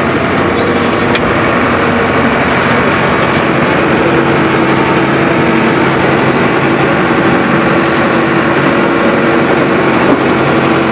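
Tractor diesel engine running steadily under load, powering a tractor-mounted backhoe as it digs and dumps soil.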